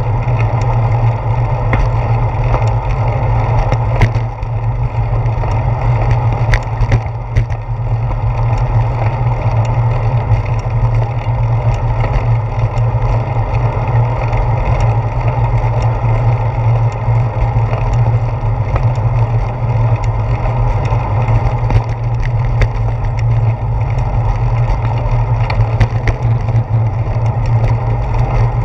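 Wind and riding vibration picked up by a handlebar-mounted GoPro Hero 4 on a moving bicycle: a loud, steady rumble broken by frequent small clicks and knocks from bumps in the pavement.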